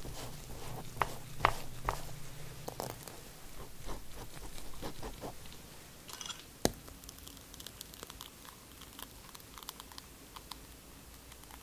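Silicone pastry brush dabbing and brushing coffee syrup onto a soft chocolate sponge cake layer: soft, moist crackles and small taps. A single sharp click comes about two-thirds of the way in. After it the sound turns quieter, with only sparse faint ticks, while thick mascarpone cream is poured into the metal mousse ring.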